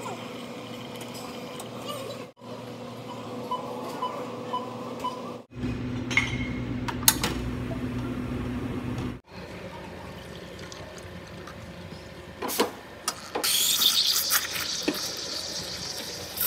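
Commercial espresso machine sounds across several quick cuts: a steady machine hum with a few light metal clinks, the machine running louder in the middle, then near the end the steam wand hissing loudly as it steams milk in a stainless steel pitcher.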